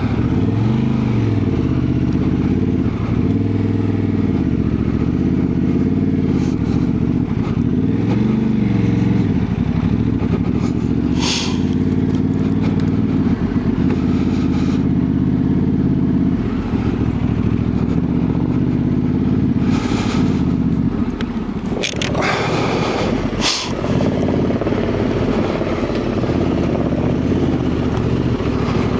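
Honda Transalp 750's parallel-twin engine running under load off-road, revving up and down repeatedly for the first stretch, then pulling more steadily. A few short, sharp noises cut through, once about a third of the way in and a couple of times later on.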